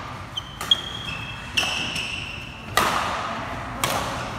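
Badminton rackets striking the shuttlecock in a fast rally, four sharp hits about a second apart, with high squeaks of court shoes on the floor mat between the hits.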